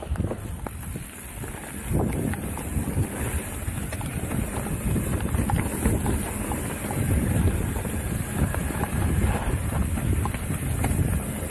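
Wind buffeting the microphone of a camera on a mountain bike descending a dirt trail, with a steady low rumble of tyres on dirt. Short knocks and rattles of the bike over bumps are scattered throughout.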